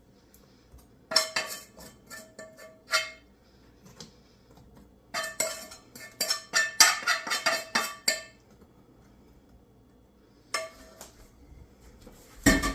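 Spoon clinking and scraping against a pot in several bursts of quick knocks with a short ring, as hot rum glaze is spooned over a cake.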